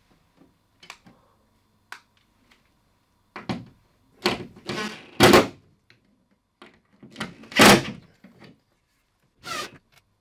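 DeWalt cordless drill/driver running in several short bursts, driving screws that fix a metal TV wall-mount bracket into a wooden wall, with knocks from the bracket and spirit level being handled.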